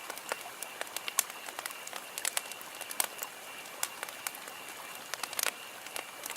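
Wood campfire crackling: irregular sharp pops and snaps, several a second and varying in loudness, over a steady soft hiss of burning.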